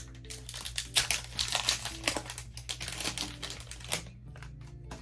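Foil wrapper of a Pokémon card booster pack crinkling loudly as it is handled, from about one second in until about four seconds in.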